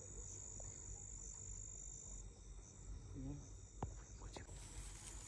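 Crickets trilling in a faint, steady night chorus. A sharp click about four seconds in.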